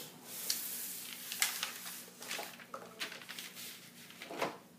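Scattered light clicks and knocks with some rustling: small objects being handled and set down.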